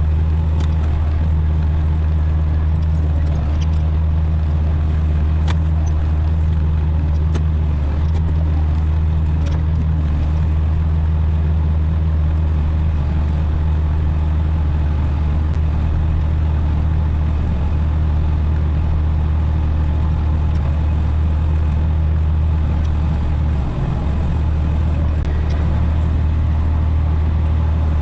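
Tractor engine running steadily at a constant speed under load, a loud low drone with a brief small dip near the end.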